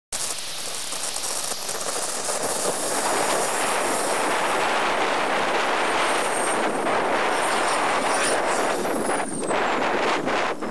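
Home-built model turbojet engine running at high power: a loud rushing roar with a thin, steady high whine over it. The whine slides down in pitch near the end.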